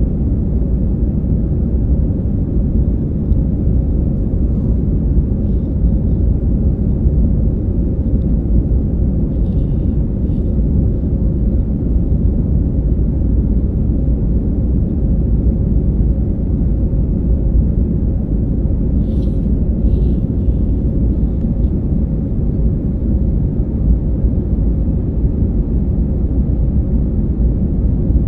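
Steady low rumble of an Airbus A319-112's CFM56 turbofan engines and rushing airflow, heard inside the passenger cabin at a window seat during the climb after takeoff.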